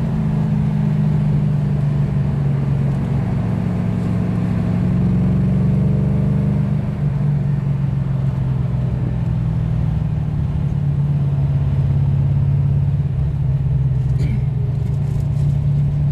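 Holden VH Commodore HDT Group Three V8 engine running steadily at a cruising pace, heard from inside the cabin, with a brief dip in level about seven seconds in.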